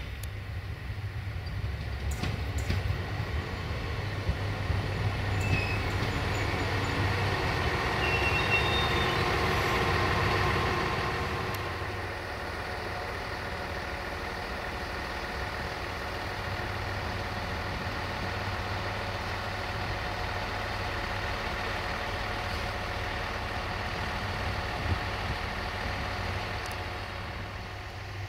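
Siemens Desiro diesel multiple unit running along the line, its engine and wheel noise growing louder to a peak about ten seconds in. A few short high squeaks come through before the peak. It then eases to a steadier, quieter engine drone.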